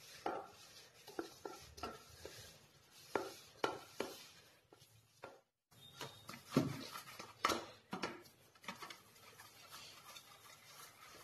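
Hands kneading a stiff semolina-and-flour dough in a stainless steel bowl: faint, irregular soft thumps and taps as the dough is pressed and pushed against the metal, with a brief silence about halfway.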